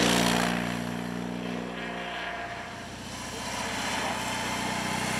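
BMW R18's 1.8-litre boxer twin engine running as the motorcycle rides through a bend, fading as it goes away over the first few seconds, then growing louder again toward the end as the bike approaches.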